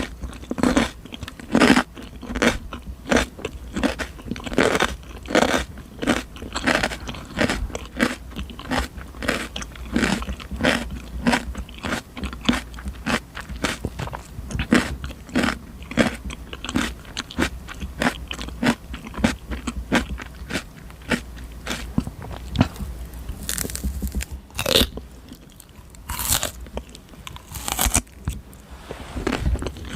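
Close-miked crunching and chewing of raw cucumber, a steady quick chewing rhythm of crisp crunches. A few sharper, brighter crunches stand out in the last several seconds.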